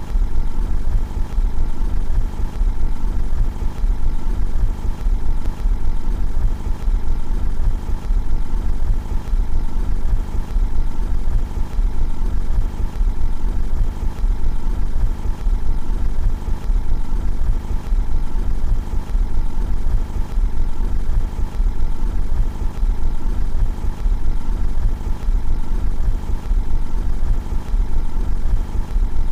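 Car engine running at a steady idle, heard from outside the car.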